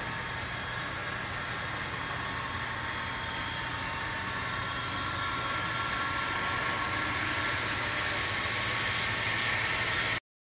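Model PRR Geep diesel locomotives running past with a steady engine-like drone and faint whine, growing louder as they approach. The sound cuts out for a moment near the end.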